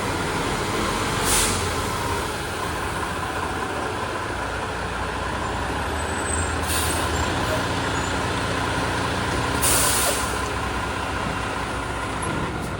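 Fire truck's diesel engine running steadily, with three short hisses of its air brakes a few seconds apart.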